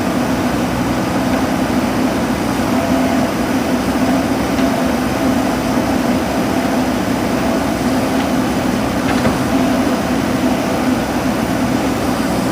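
JCB backhoe loader's diesel engine running steadily under working load.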